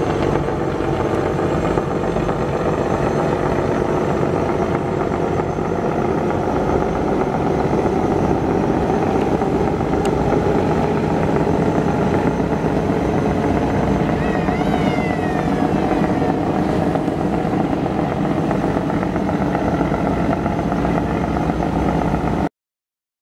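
Steady drone of river passenger-launch engines with water noise, under way. A brief high wavering tone about fifteen seconds in, and the sound cuts off abruptly shortly before the end.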